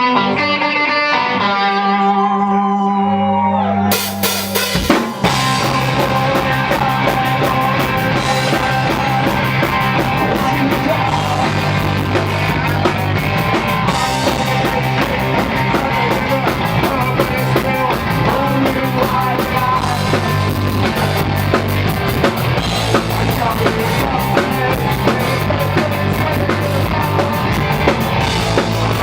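Punk rock band playing live. It opens with a few seconds of electric guitar notes over a low bass note, then drums, bass and guitars come in together about five seconds in and play on at a steady driving beat.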